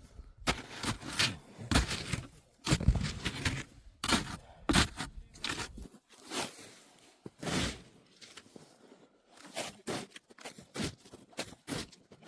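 Irregular crunching and scraping of packed snow being worked during igloo building, many short strokes in quick succession.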